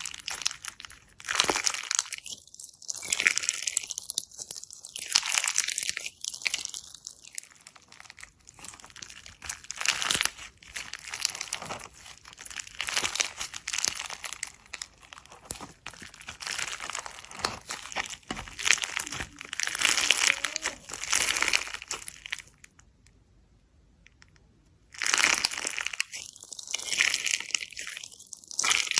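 Crunchy slime being squeezed and pressed by hand, crackling with dense quick clicks and crunches. The sound stops for about two seconds near the end, then resumes.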